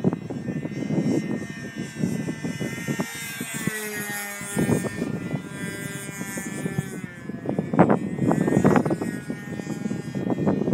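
A small propeller plane flies overhead, its engine drone falling slightly in pitch as it passes. Gusts of wind buffet the microphone and are loudest near the start and again in the last few seconds.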